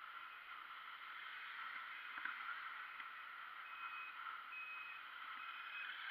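Steady outdoor garden ambience: an even high hiss, with three short high notes about two thirds of the way through.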